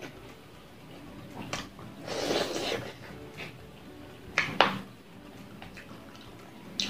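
Close-up eating sounds from a person eating rice and fried fish with her hands: chewing and wet mouth noises, with a longer noisy rush about two seconds in and two sharp smacks a little after four seconds.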